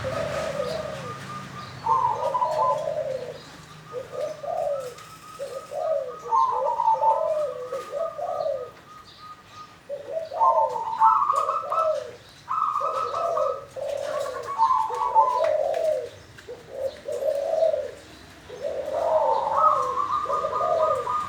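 A wild-caught local zebra dove (perkutut) singing: a series of rolling coo phrases with short pauses between them, several phrases opening on a higher note.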